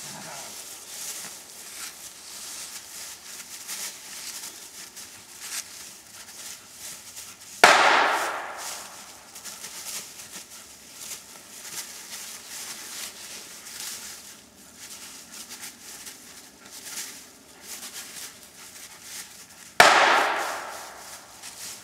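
Two gunshots from a blank pistol, about twelve seconds apart. Each is a sharp crack that echoes and dies away over about a second and a half. They are fired during play to test the dog's reaction to gunfire. Between the shots, dry leaves rustle faintly underfoot.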